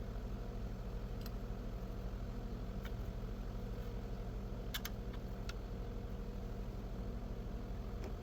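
Truck-mounted concrete pump's diesel engine running steadily at idle while the boom is rigged, with a few faint clicks over it.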